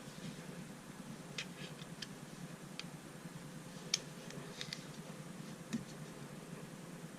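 Faint, irregular small clicks and taps of fingers working at a Victorinox SwissCard's plastic case, trying to pry out its tight-fitting straight pin; the sharpest click comes about four seconds in.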